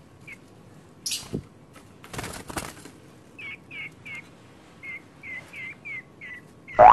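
A cak jenggot bird calling a steady series of short, hooked notes, about three a second, after a couple of brief rustling noises. A loud, wavering warble begins right at the end.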